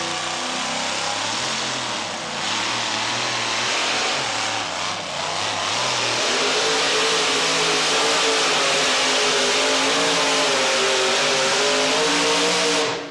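Two-wheel-drive pulling truck's engine under full load, dragging a weight-transfer sled down the track. The engine note wavers for the first few seconds, then climbs and holds high and loud, and drops away suddenly near the end.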